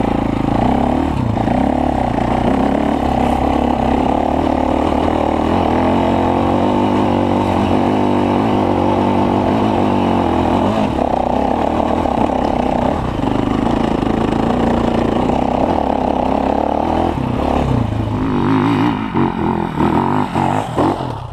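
KTM enduro dirt bike engine running steadily under load as the bike climbs a grassy hill, its note shifting slightly with the throttle. In the last few seconds the engine sound turns uneven, with the throttle going on and off.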